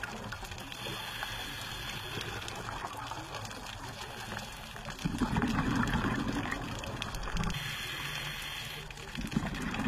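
Scuba diver breathing through a regulator underwater: a steady hiss, then a burst of exhaled bubbles about five seconds in lasting about two seconds, and another burst starting near the end.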